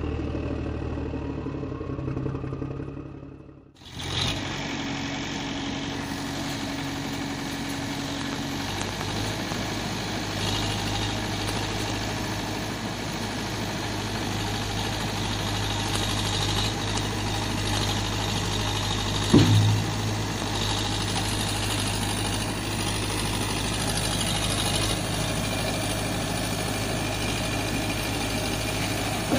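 Vehicle engine running steadily at a low hum, briefly cutting out about four seconds in and then carrying on. There is a single louder knock partway through.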